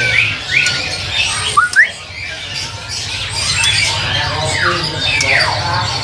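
Many caged songbirds calling at once: a jumble of short chirps and squawks, with a quick rising note a couple of seconds in and several long falling whistles near the end. A steady low hum runs underneath.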